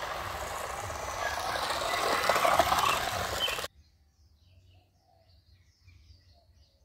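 Small battery motor and propeller of a homemade drink-can toy airplane whirring as it rolls across concrete. It grows louder for a moment past halfway, then cuts off suddenly, leaving only faint bird chirps.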